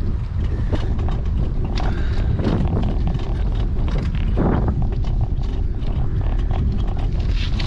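Wind buffeting the microphone of a GoPro on a moving bicycle, a steady low rumble, with scattered clicks and knocks as the bike rolls over the path.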